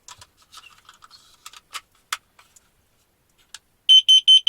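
A few light clicks and taps as a carbon monoxide detector is handled, then near the end four quick, loud, high beeps from the detector running its start-up test mode.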